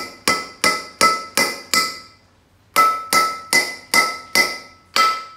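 Claw hammer driving a nail into a wok's steel handle socket to fix the wooden handle, about three quick, evenly spaced blows a second, each followed by a short metallic ring. A run of six blows, a brief pause, then another run.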